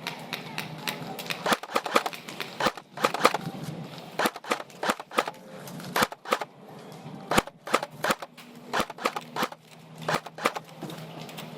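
Airsoft guns firing: irregular single shots and short quick bursts of sharp clicks.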